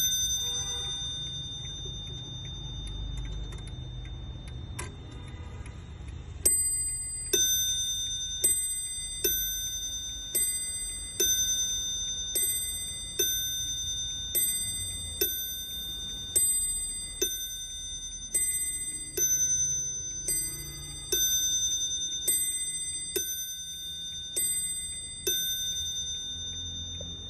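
German mantel clock striking the hour on two bell cups with two hammers: a long run of ding-dong strikes alternating a higher and a lower ringing note, about one a second, each note dying away. Before the strike begins there are two short runs of quick clicking.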